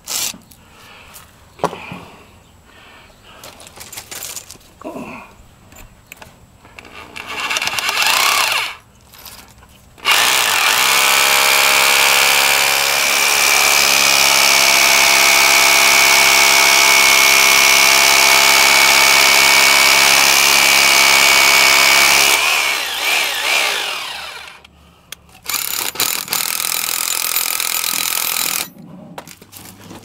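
Bosch Bulldog rotary hammer drilling into a concrete wall: one long steady run of about twelve seconds, with a shorter burst before it and another after it.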